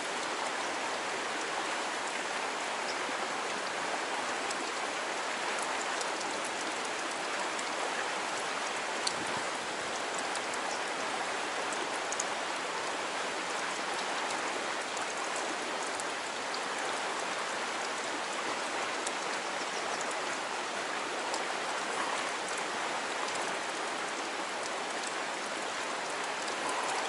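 Fast stream water rushing through a narrow rock channel: a steady, even rush.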